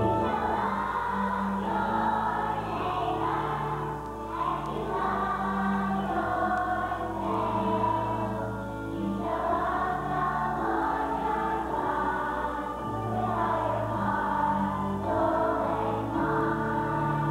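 Large children's choir singing a song together, with instrumental accompaniment that holds sustained low notes under the voices.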